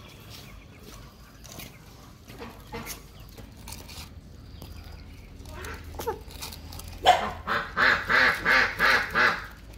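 A run of about eight short, loud animal calls in quick succession, about three a second, starting about seven seconds in, after a stretch of soft scattered sounds.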